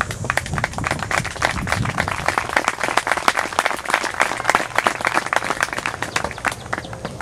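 Audience applauding: many hands clapping, thickest in the middle and thinning out near the end.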